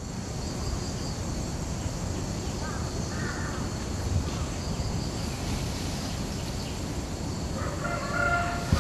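Outdoor ambience: a steady hiss with a low rumble, and a bird calling twice, faintly about three seconds in and louder near the end.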